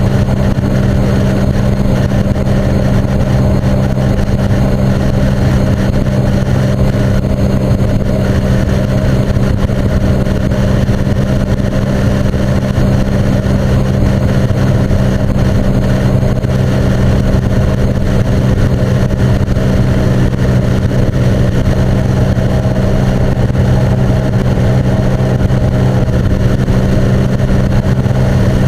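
Sea-Doo personal watercraft engine running at a steady cruising throttle, a constant drone with no change in pitch, heard through the camera's waterproof case.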